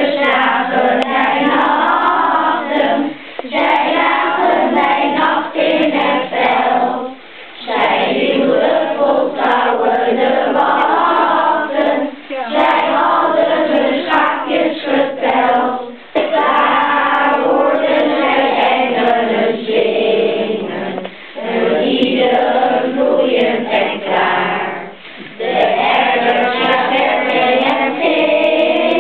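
Children's choir singing a Christmas song in unison, unaccompanied, in phrases of a few seconds with short breaks between them.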